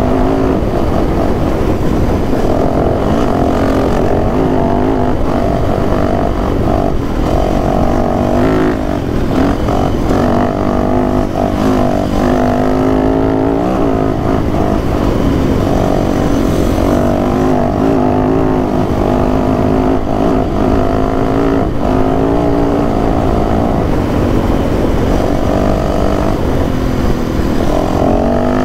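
Dirt bike engine running under way, its pitch rising and falling again and again as the rider speeds up and eases off, with steady rumble of wind and road noise on the microphone.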